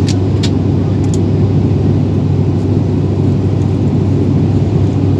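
Airliner cabin noise on the landing approach: a steady, loud rumble of engines and airflow, with a few faint clicks in the first second or so.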